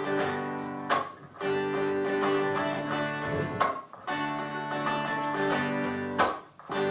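Small-bodied acoustic guitar strummed in chords, an instrumental break with no singing, with short pauses about a second, three and a half and six and a half seconds in.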